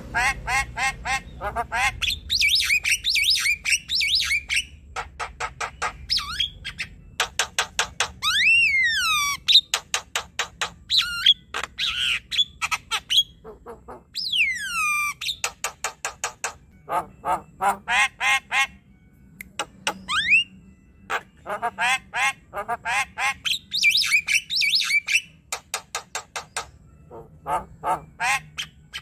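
Javan myna singing a long, varied chatter: fast runs of harsh, clicking notes, about five or six a second, broken by loud whistles that slide down in pitch. The song pauses only briefly.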